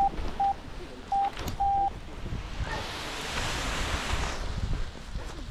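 Short electronic beeps, all at the same pitch, come at uneven intervals, four of them in the first two seconds, over wind noise on the microphone. About halfway through, a rushing hiss swells for about a second and a half, then falls away.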